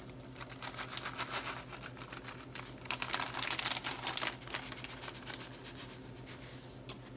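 Plastic bag of shredded cheddar crinkling as the cheese is shaken out of it, in quick light ticks that thicken in the middle. A single sharp click near the end.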